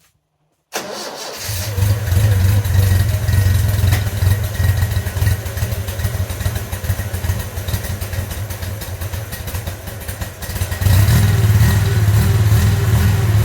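Datsun 620's L20B inline-four engine starting for the first time after a cylinder-head job with the valves cleaned up: it fires up under a second in and runs steadily. From about eleven seconds in it runs louder, with a steady whirring tone, a whirring noise whose cause the owner hasn't found.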